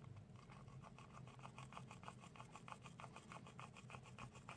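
Toothbrush scrubbing the worn contacts of a blender's speed selector switch with alcohol: faint, quick brushing strokes, several a second.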